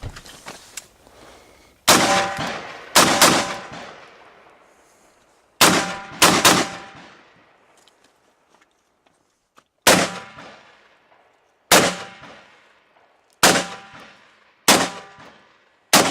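Rifle shots fired one after another: about a dozen sharp reports, some in quick pairs, spaced one to four seconds apart, each trailing off in a short echo.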